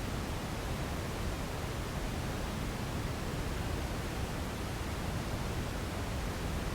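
Steady generated sleep noise: an even, unchanging rush, fuller and heavier in the low end than in the treble, like pink noise.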